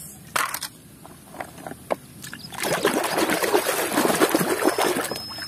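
A few light knocks from a plastic toy truck being handled, then from about two and a half seconds in, water splashing and sloshing as a hand scrubs a toy in a tub of foamy soapy water.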